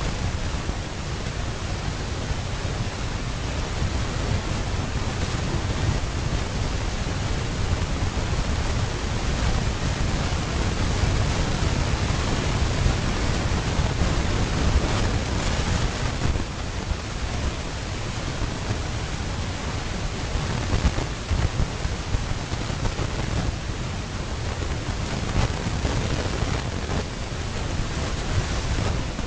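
Wind buffeting an outdoor microphone: a steady rushing noise with a heavy low rumble, and no distinct animal calls.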